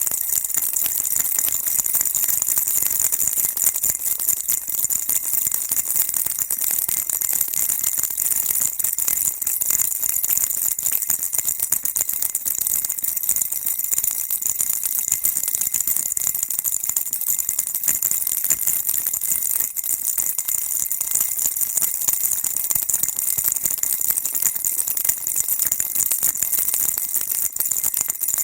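Baby rattle shaken continuously, a dense, even stream of small rattling clicks with a faint ringing tone under it.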